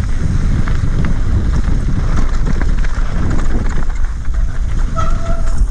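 Mountain bike descending a rocky gravel trail at speed: heavy wind rumble on the microphone, with the tyres crunching and the bike rattling over stones. A short, high brake squeal comes near the end.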